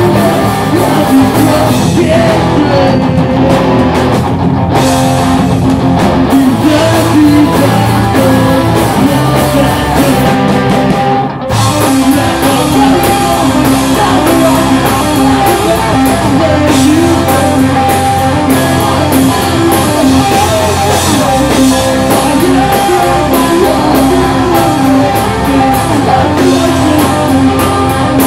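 Pop-punk band playing at full volume: distorted electric guitars, bass and drum kit under a sung lead vocal, with a short break about eleven and a half seconds in.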